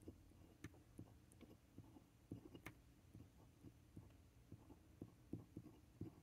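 Faint, irregular ticks and scratches of a glass dip pen's nib on paper while hand-lettering, about three small strokes a second.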